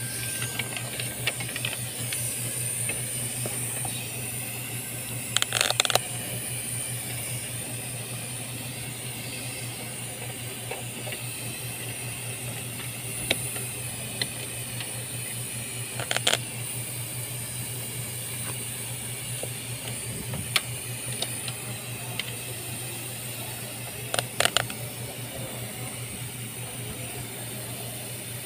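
A handful of sharp clicks and short clatters of parts and tools being handled in a car's engine bay during spark plug and ignition coil work. A steady low hum and hiss run underneath.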